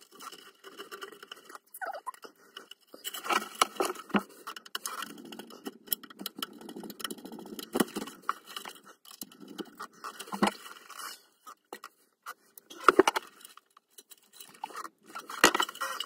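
A tangle of thin alarm cables being handled and pulled by hand: irregular rustling and scraping of wires, with small sharp clicks.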